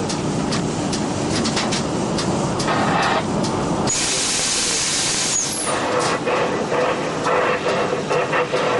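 Freight train running, heard from the locomotive cab: a steady rumble with many irregular clicks and rattles from the wheels and cab. About four seconds in, a loud rush of hiss lasts for about a second and a half, and a faint steady tone runs through the second half.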